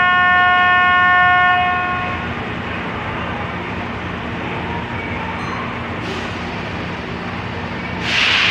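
Station platform departure melody ending on a held chord of several steady notes, which stops about two seconds in. The steady hum of the station follows, with a short loud hiss near the end.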